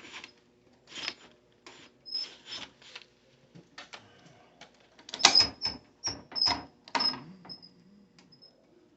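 Irregular clicks and short metallic scrapes of tools and metal being handled at a partly drilled steel safe door, with no drill running. They grow denser and louder about five seconds in, some carrying a thin high squeak.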